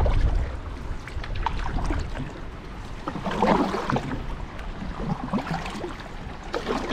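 Water splashing and burbling around an open canoe and its paddles as it moves down the river, with a louder patch of splashing about halfway through. Wind rumbles on the microphone at the start.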